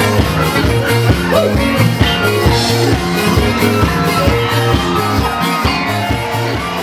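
Upbeat band music with a steady beat.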